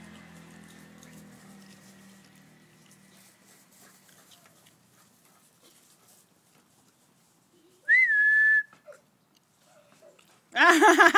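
A faint engine hum fades out over the first few seconds. About eight seconds in comes a single short whistled note that rises briefly and then holds steady. Near the end there is a loud, high, wavering vocal cry.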